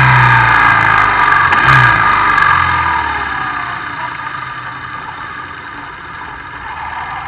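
BMW R1100RS flat-twin boxer engine heard with wind rush at road speed, easing off so that its note falls and fades as the bike slows.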